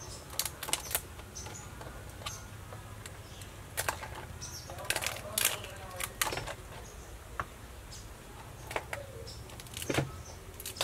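Cooked mud crab shells being cracked and pulled apart by hand over a plastic colander: irregular sharp cracks and snaps, over a low steady hum.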